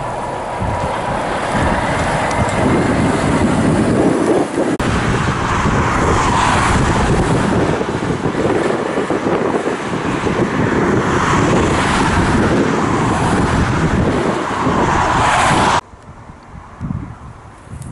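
A Volvo FH tractor unit hauling a container trailer drives up and past; after a cut about five seconds in, a Volvo articulated dump truck drives past with steady diesel engine and tyre noise. About sixteen seconds in the sound drops suddenly to quiet wind noise.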